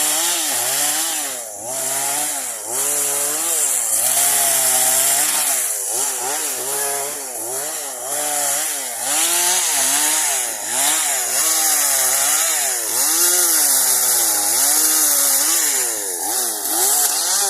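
Chainsaw cutting pine branches, its engine revving up and dropping back again and again as the throttle is worked. At the very end the revs fall away.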